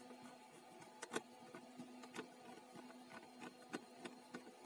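Faint, irregular clicks and ticks of a screwdriver turning a terminal screw on a brass contact strip in a plastic electrical housing, the sharpest about a second in, over a steady low hum.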